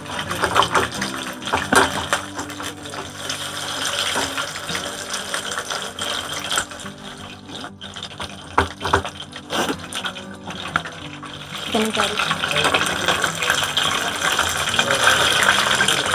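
Chicken leg pieces deep-frying in hot oil in a kadai, sizzling and bubbling steadily, growing louder in the last few seconds. A wire spider strainer clinks against the pan a few times.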